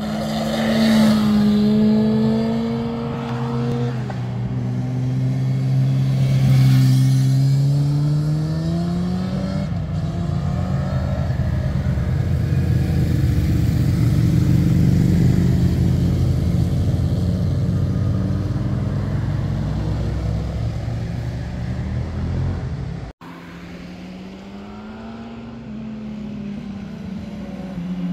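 Sport motorcycles riding past one after another. First an engine accelerating through a bend, its pitch climbing in steps through gear changes; then a steadier, lower, dense engine rumble as another bike passes. After a sudden cut about three-quarters of the way through, a quieter engine approaches, rising in pitch near the end.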